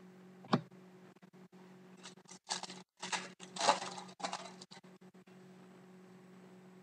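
Trading cards and a clear plastic card sleeve being handled: a sharp click about half a second in, then a few seconds of plastic crinkling and card rustling. A steady faint electrical hum runs underneath.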